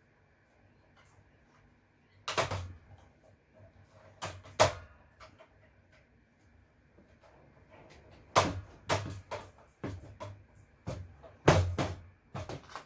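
Irregular sharp knocks and clatters of hard parts being struck and pulled apart while scrapping equipment by hand: a few single knocks in the first half, then a busier run of them from about two-thirds of the way in.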